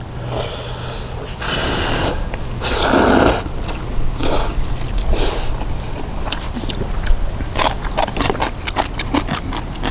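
People slurping and eating ramen noodles, with two longer slurps in the first few seconds, then quick small clicks and smacks.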